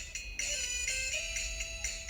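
Background music: a light, bell-like tune with a simple melody.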